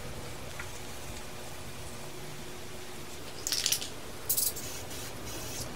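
Aerosol spray-paint can sprayed in two short hissing bursts, about three and a half and four and a half seconds in, over a steady low background hum.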